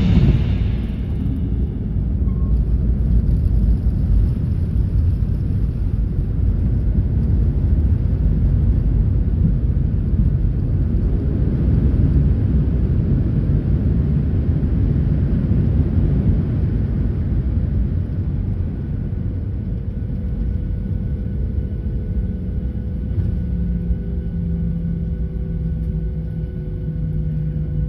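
Cabin noise of an airliner rolling on the runway after landing, spoilers raised: a loud steady rumble from the engines and wheels that eases somewhat after about 16 seconds, with a low steady hum coming in over the last few seconds.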